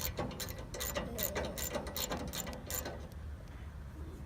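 Socket wrench ratchet clicking in quick strokes, about five clicks a second, as a set bolt on the blade guide-roller adjustment is turned. It stops about three seconds in.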